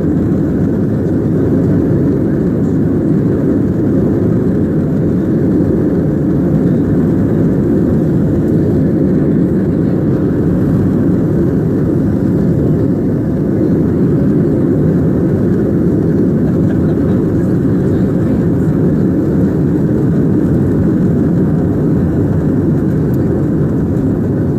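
Airliner jet engines and airflow heard as a steady, loud low rumble, with no rise or fall.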